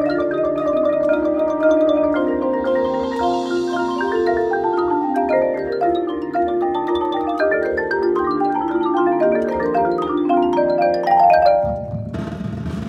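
A marching percussion front ensemble of marimbas and vibraphones plays quick, flowing runs of mallet notes that climb and fall. About a second before the end, the drumline comes in with a dense roll on the drums.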